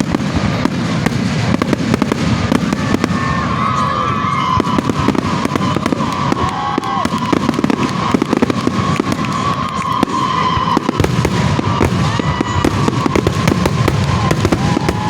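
Fireworks finale barrage: a rapid, unbroken string of bangs and crackles, with a whistling tone running through the middle.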